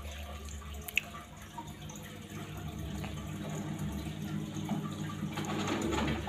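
Water trickling and dripping over a steady low hum, with one sharp click about a second in.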